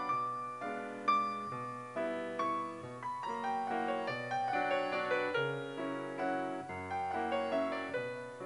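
Background piano music, with notes and chords struck at an even pace.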